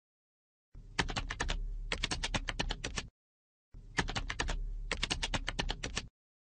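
Typing on a computer keyboard: two runs of rapid keystrokes, the first starting about a second in and the second after a short pause about halfway through.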